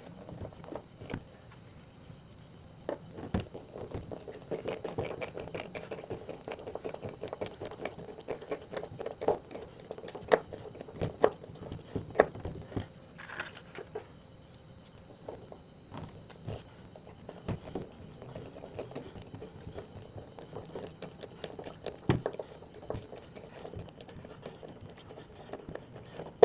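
Screws being driven to mount a screen door closer bracket on the door frame: irregular clicks, taps and scraping of the screwdriver and screws, with a stretch of rubbing from about four to twelve seconds in.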